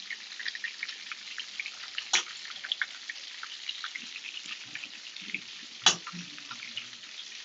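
Garlic butter shrimp sauce crackling and sizzling in a pan, with two sharp knocks about two and six seconds in.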